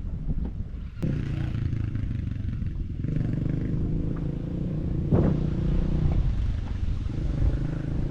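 Motorcycle engine running at low, steady revs, with some clattering in the first second before the engine sound comes in.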